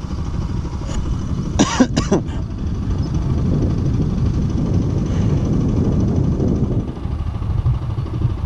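Motorcycle engine running steadily under way, with road and wind rumble. A brief vocal sound in two short parts comes about two seconds in.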